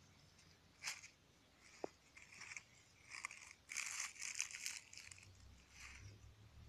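Faint rustling and crackling of dry leaves and plant stems being brushed through close to the microphone, in scattered crunches that bunch together between about three and five seconds in.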